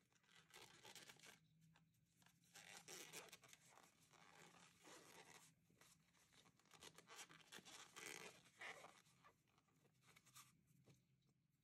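Faint rustling and scraping of T-shirt yarn being worked with a large crochet hook, drawn through stitches in short, irregular spells a second or two apart.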